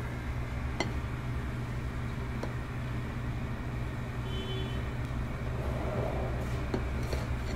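Steady low rumble of a gas burner under a large pot of boiling meat, with a few faint clicks as the scum is skimmed off the surface.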